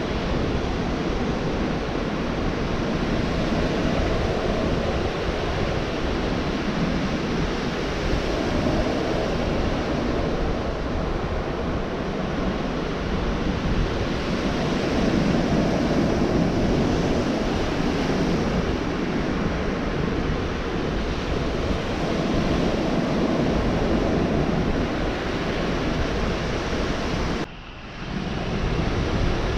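Gulf of Mexico surf washing onto the beach: a steady rush of breaking waves that swells and eases every few seconds. The sound drops out suddenly for about half a second near the end.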